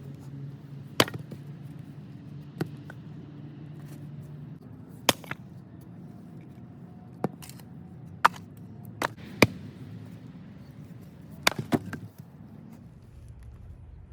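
Axe chopping and splitting firewood: about nine sharp, woody chops and knocks at uneven spacing, some coming in quick pairs.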